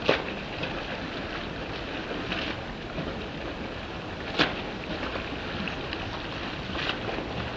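Front-crawl swimming in open water: short splashes from the arm strokes every two seconds or so over a steady rush of water and wind.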